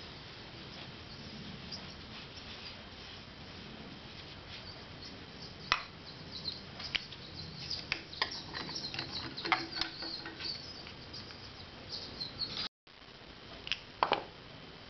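Clutch discs clicking and clinking against the clutch hub of a 1984 Harley-Davidson FXWG as they are handled and slid on by hand: a run of small, sharp metal clicks from about halfway, then a moment's silence and a few more clicks near the end.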